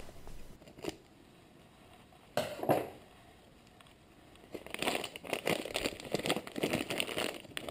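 Scissors cutting a clear plastic bag, with a sharp sound about two and a half seconds in; from about four and a half seconds the bag crinkles steadily as it is handled and pulled open.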